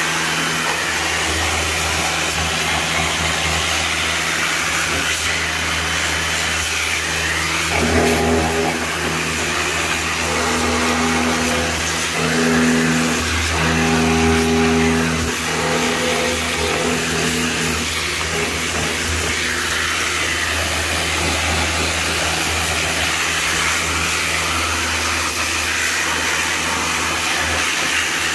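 Pressure washer running steadily, its motor and pump humming under the hiss of the water jet spraying onto a car engine. For several seconds in the middle a wavering higher-pitched hum comes and goes over it.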